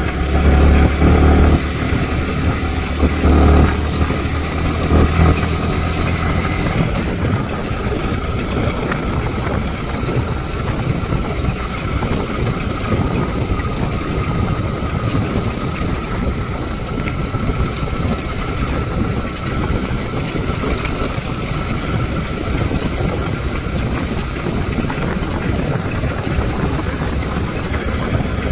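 Motorcycle engine running while under way. The engine is loud and low in the first few seconds and swells and falls a few times, then settles into a steady noise of engine and road.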